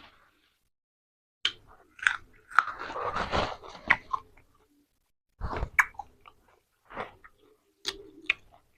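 Close-miked chewing and crunching of spicy grilled-pork salad with raw vegetables, such as cabbage and cucumber, in two spells of crisp bites and chewing with a short pause between.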